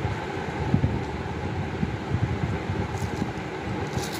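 Steady rushing background noise, like a running fan, with uneven low rumbles; near the end, a few faint crinkles of a foil chocolate wrapper being unwrapped.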